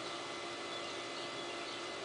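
SMC 36-inch ceiling fan running: a steady whir with a faint steady hum. Faint high chirps come and go over it.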